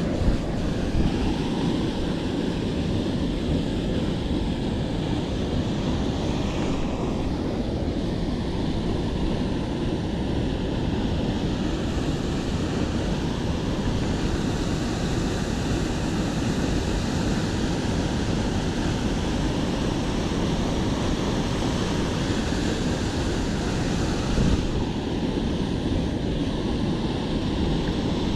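Waterfall pouring into a river pool: a steady, loud rush of falling water.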